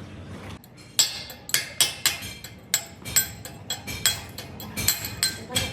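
Hammer blows on steel, a run of sharp metallic strikes with ringing, about two or three a second, starting about a second in.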